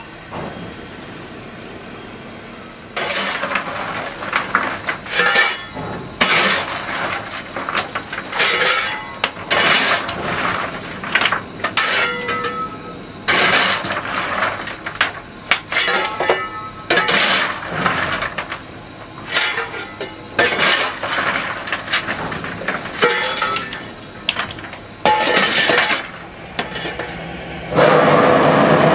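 Fireman hand-firing the coal-burning 1924 Baldwin 2-10-0 Decapod No. 90: a steel scoop scraping into coal and clanking against the firebox door opening in irregular strokes. About a second before the end a loud steady hiss of steam starts.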